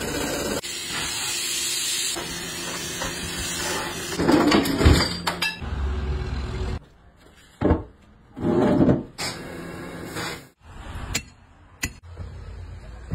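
Tyre buffing machine rasping the worn tread off a large tractor tyre with a steady grinding hiss. Then come metal clanks and sharp hammer strikes as a tyre is worked on its steel rim.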